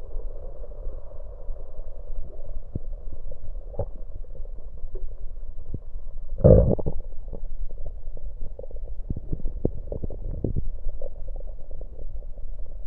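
Stomach and gut gurgling heard through an electronic stethoscope on the belly after gulping cola: gas and fizzy drink moving inside, a run of short pops and gurgles with one louder gurgle about halfway through.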